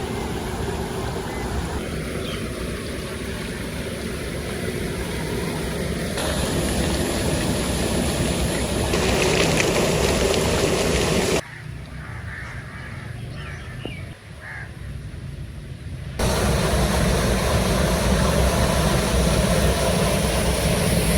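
Old flour mill machinery running with a loud, steady mechanical noise. It changes abruptly several times, with one quieter stretch of about five seconds past the middle.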